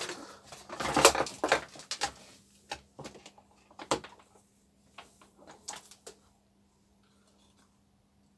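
Handling noises from test leads and connectors on a workbench: a cluster of rustles and knocks in the first two seconds, then a few scattered clicks that die away. A faint steady low hum runs underneath.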